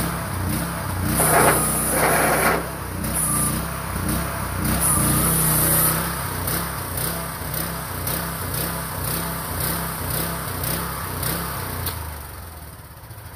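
AGROTK QH12R mini excavator's small engine running under load as the machine is tracked and its hydraulic boom, arm and bucket are worked, the engine note wavering as the load changes. The sound gets louder and brighter about a second or two in, and about a second before the end the engine drops back toward idle.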